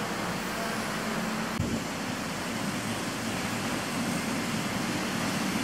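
Steady rumble of an electric commuter train (KRL Commuterline) approaching the platform, growing slightly louder toward the end, with a single short knock about a second and a half in.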